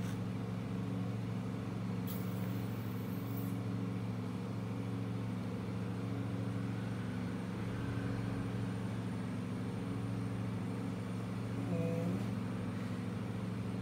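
Steady low machine hum made of several held tones, with a brief hiss about two seconds in.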